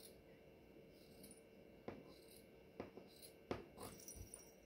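Scissors cutting through black fabric: a few faint, sharp snips, irregularly spaced, in the second half.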